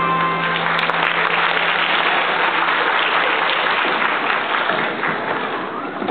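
Audience applauding at the end of a children's melodica and percussion band piece, with the band's last held note fading out under the clapping.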